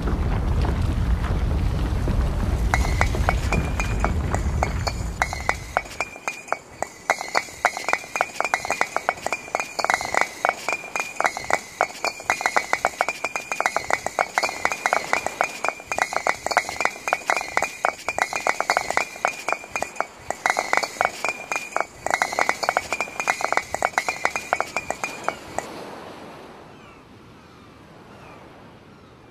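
A loud low rumble dies away over the first few seconds. It gives way to a long run of rapid, irregular clinks with a bright ringing tone, like tinkling glass, which stop about three seconds before the end.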